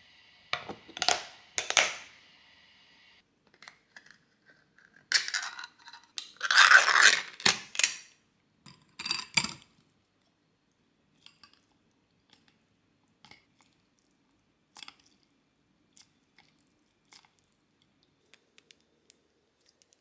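Handling noises: a few short scraping, crinkling bursts, loudest about a third of the way in, then scattered light clicks and taps.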